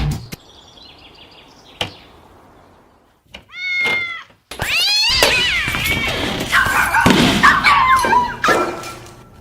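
Cat meowing: one short meow about three and a half seconds in, then a loud run of wavering meows and yowls lasting about four seconds. A single thud comes just before two seconds in.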